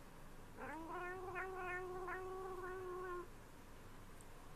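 A cat's single long meow, swooping up at the start and then held steady for about two and a half seconds before it stops.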